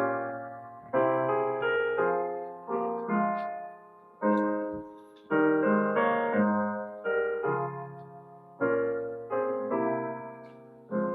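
Slow solo piano music: single chords and notes struck one at a time, each left to ring and fade before the next.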